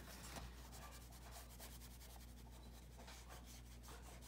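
Faint, rapid scratchy strokes of a brush marker's tip rubbing back and forth on paper, from a marker that looks to be running out of ink.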